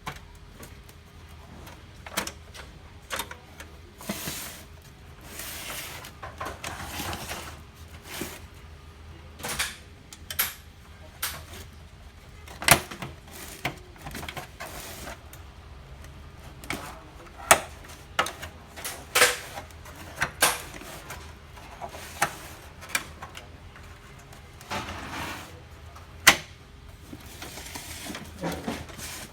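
Irregular clicks, knocks and short scrapes of plastic printer parts and tools being handled while an HP LaserJet MFP 135a laser printer is taken apart. A faint steady hum runs underneath.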